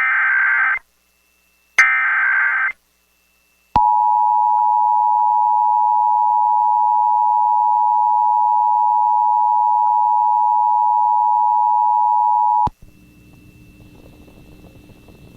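Emergency Alert System tones: the last two bursts of the screeching SAME digital header, then the EAS two-tone attention signal, a steady harsh chord held about nine seconds. It cuts off sharply to a faint hum, opening a civil emergency message.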